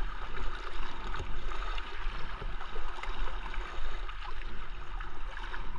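Water rushing and splashing against a kayak's hull as it is paddled along a rippling river, with paddle blades dipping into the water.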